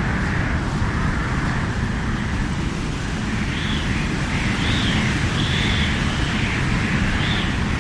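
Strong stormy howling wind: a steady low rumble under gusts that whistle and moan, rising and falling in pitch, more often from about halfway through.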